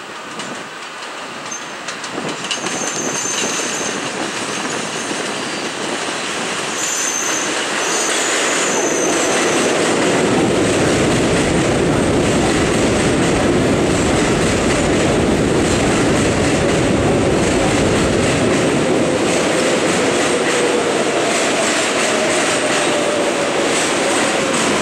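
Kawasaki R188 subway train pulling into an elevated station. High wheel squeals come first as it approaches. From about a third of the way in, the cars roll past in a loud, steady rumble, and near the end a faint tone falls in pitch as the train slows.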